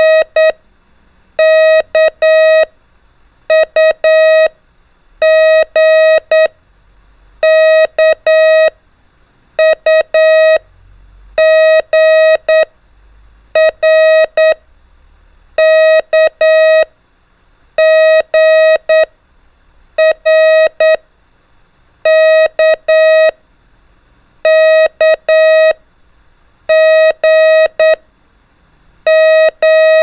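Morse code practice tones: a single steady beep keyed on and off in dots and dashes, sending one letter about every two seconds, drawn from R, K, U and G.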